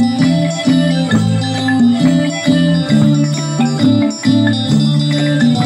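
Isan pong lang folk ensemble playing a dance tune: a melody of quick repeated notes over a low line whose notes change about twice a second.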